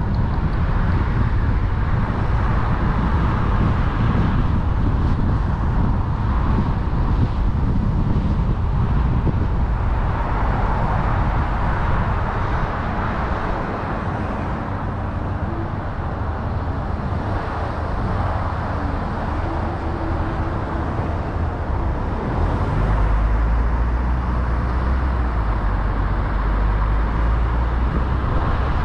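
Car driving on a main road: steady engine and tyre noise, a little quieter about halfway through while slowing behind traffic, then a deeper, louder rumble as it picks up speed again near the end.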